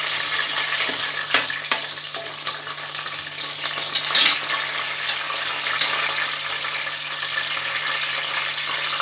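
Green chillies and curry leaves sizzling and crackling in hot oil in a pot, with a few sharper pops. A low steady hum runs underneath.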